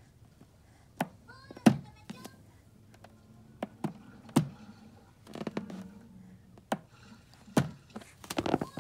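A baby's hands handling an inflated rubber balloon: scattered sharp taps and thumps as his fingers grip and pull at the knot and the balloon bumps about, the loudest a little under two seconds in and a quick run of them near the end.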